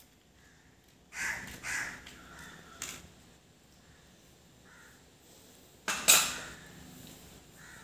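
A crow cawing: two caws about a second in and a louder caw about six seconds in, with a single light click between them.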